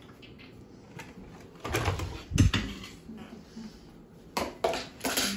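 Plastic dinner plates knocking and clattering as they are taken down from a cupboard shelf, with one loud knock about halfway through and a quick run of clatters near the end.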